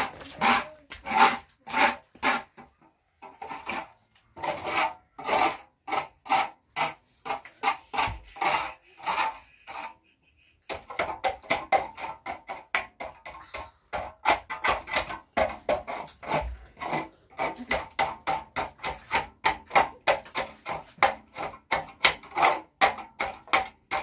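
Rhythmic scraping strokes, three to four a second, with short pauses about three seconds in and again near ten seconds.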